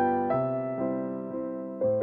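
Background music: a piano-like keyboard playing a melody of struck notes that ring and fade, a new note every third of a second or so, with a fresh chord near the end.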